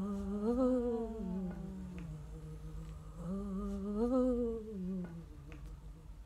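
A woman humming a slow wordless melody in two phrases, each rising and then falling back, trailing off about five seconds in.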